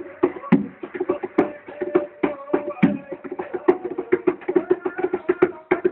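Derbakke (goblet drum) played in a fast, dense rhythm: quick sharp rim strokes, several a second, broken by occasional deep bass strokes from the centre of the head.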